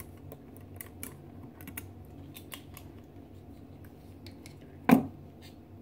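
Light, scattered clicks of a set of plastic measuring spoons knocking together on their ring as salt is measured into a plastic mixing bowl, with one sharper tap about five seconds in.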